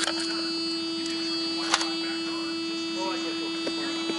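A steady electrical hum, one constant tone with a high buzzy edge, broken by a few sharp clicks. The loudest click comes a little under two seconds in, with two smaller ticks near the end.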